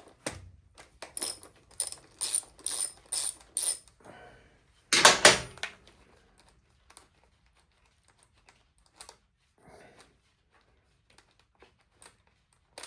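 Hand tools working on a motorcycle: a run of about eight sharp, evenly spaced clicks, roughly two a second, then one loud metallic clatter about five seconds in, then faint scattered clicks of handling.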